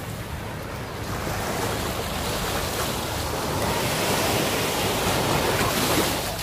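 Small waves breaking and washing up on a sandy shore, the surf swelling louder through the middle and easing near the end, with wind buffeting the microphone.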